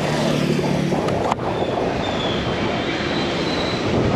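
Wind noise and road rumble from an Okinawa electric scooter accelerating, with a thin high whine from its electric motor that rises as it picks up speed, and a brief knock about a second and a half in.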